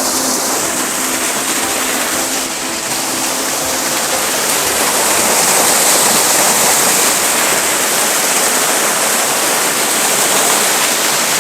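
Water cascading down a mountain stream below a small waterfall: a steady, loud rush.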